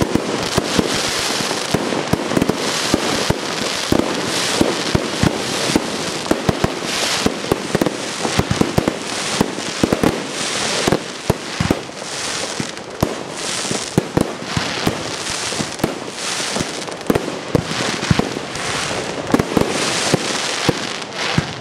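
Fireworks display: a dense, unbroken run of aerial shell bursts, sharp bangs several times a second over a constant crackling of stars.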